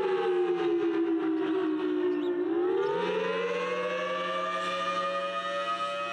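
Civil defense siren sounding several tones at once: its pitch falls slowly for about two and a half seconds, then winds back up and holds steady.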